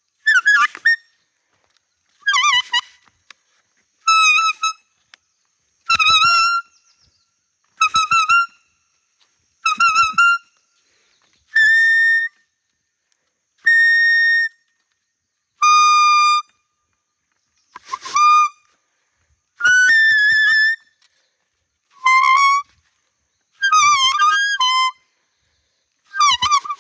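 Bamboo deer call blown by mouth in short, high bleats, about one every two seconds. Some hold a steady pitch and others waver. It imitates a fawn's cry, meant to draw a doe in.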